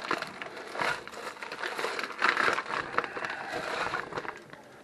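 Plastic corned beef brisket packaging crinkling and crackling as it is pulled away and handled, most intense a little past the middle and dying down near the end.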